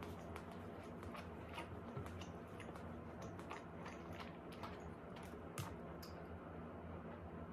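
Soft, irregular clicking mouth sounds of someone slowly chewing a sticky rice cake (tteok), about two or three clicks a second, dying away about six seconds in, over a faint low hum.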